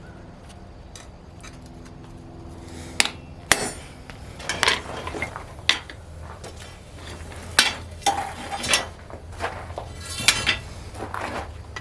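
Hammer blows and metallic clinks on steel at the anvil, about a dozen irregular ringing strikes beginning about three seconds in, over a steady low hum.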